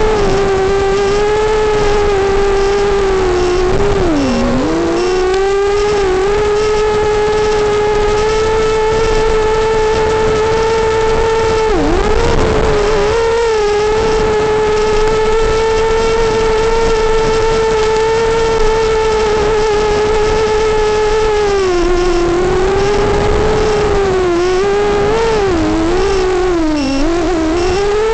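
FPV quadcopter's brushless motors and propellers whining steadily. The pitch dips sharply about four and twelve seconds in and wobbles up and down several times near the end as the throttle changes.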